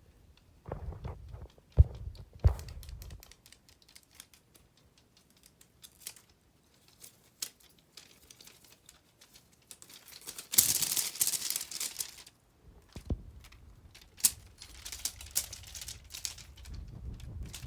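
Rustling and scratching on a crinkly material, with scattered light clicks; about ten seconds in, a louder stretch of rustling lasts over a second.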